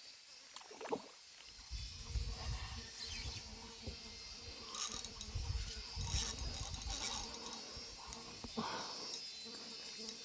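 Insects buzzing steadily and high-pitched in the Amazon forest, with low rumbling on the microphone between about 2 and 7 seconds in.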